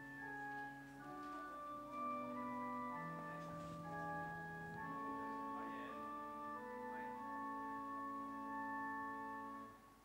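Slow organ music of long held chords that change every second or two, stopping shortly before the end.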